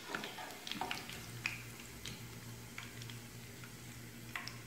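Mutton kola urundai meatballs frying slowly in oil on low heat: scattered soft pops and crackles from the oil over a low steady hum.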